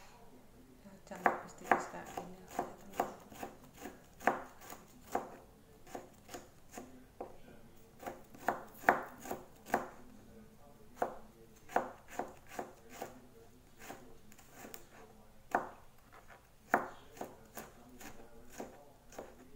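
Kitchen knife chopping garlic cloves on a plastic cutting board: irregular sharp knocks, a few a second, starting about a second in.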